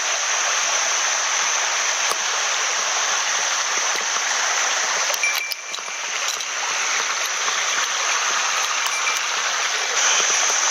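Small mountain headwater stream running, a steady rush of water that dips briefly about halfway through.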